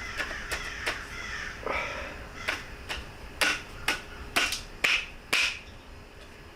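A series of sharp clicks and taps as the channel of a Mustang vent window is worked loose, coming more often and louder past the middle.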